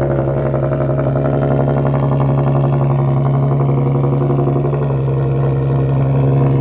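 Infiniti Q50's engine and exhaust running loudly with a steady, deep drone that swells slightly near the end.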